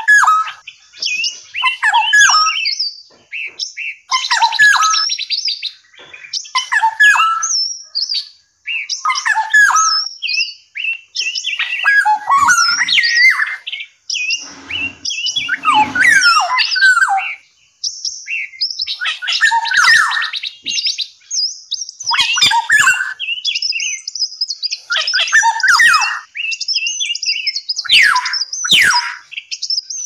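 Caged songbirds singing loud, varied phrases of clear whistles, warbles and fast buzzy trills, one phrase after another with short pauses between.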